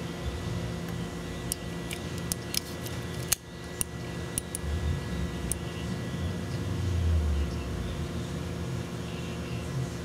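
Hands working in a car's wiring harness: scattered sharp clicks and light plastic rattles, with the sharpest click a little past three seconds in. A steady low hum runs underneath, and a low handling rumble comes up in the second half.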